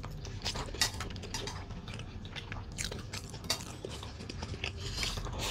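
Chewing a mouthful of food: irregular short clicks from the mouth.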